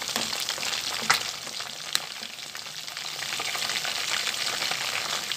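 Chicken wings frying in a stainless steel pot of hot oil: a steady, dense crackling sizzle. Two sharp clicks stand out, about one and two seconds in, as metal tongs turn the pieces.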